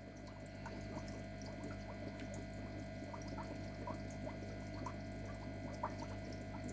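Aquarium water moving over a steady low equipment hum, with many faint scattered ticks and pops.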